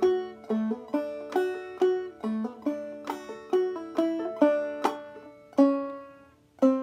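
Open-back banjo in Double D tuning played clawhammer style: a slow phrase of single plucked notes, about two a second, each ringing and fading, with the last two notes near the end left to ring out longer.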